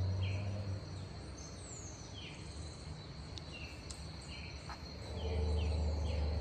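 Outdoor rural morning ambience: a steady high-pitched insect drone with short falling chirps repeating every second or so. A low hum underneath fades after the first second and comes back louder about five seconds in.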